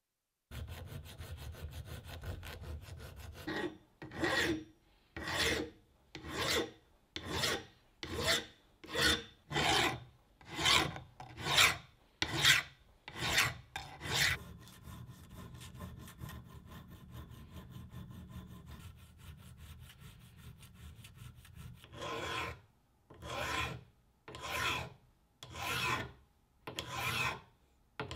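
Hand file rasping across the teeth of a metal drill-stand rack, in even strokes about one a second. The strokes stop for several seconds in the middle, leaving a low steady background hum, then resume.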